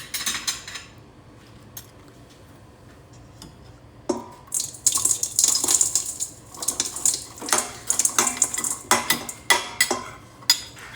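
Spoon scraping and clinking against a mixing bowl as brown sugar is spooned in: a few clinks at first, a quieter pause, then from about four seconds in a busy run of scrapes and knocks.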